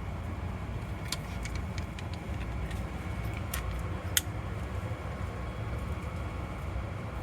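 Steady low rumble with a few light, sharp clicks, about four of them, as cartridges are pushed into a pistol magazine.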